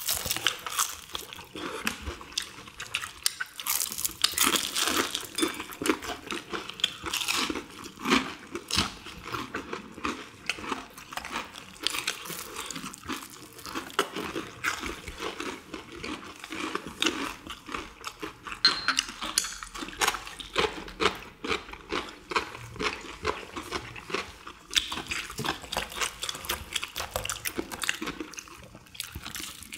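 People biting into and chewing crispy deep-fried chicken in a perilla-leaf batter. Dense, irregular crunching and crackling of the fried crust goes on throughout.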